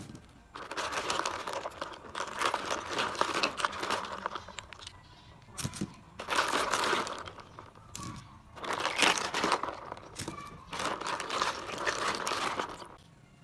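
A child's hand stirring through a plastic tub of live cockles in shallow water, the shells clattering and grinding against each other and the tub in four bursts of a second or more, with short pauses between.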